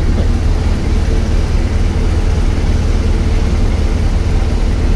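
BMW R1200GS boxer-twin motorcycle engine running, heard with a steady low rumble of wind and road noise on the camera microphone.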